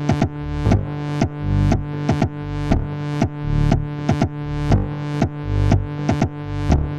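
Modular synthesizer patch playing electronic music: a kick drum about once a second under a steady bass tone, with short synth hits repeating about three times a second. The bass is sent to a delay.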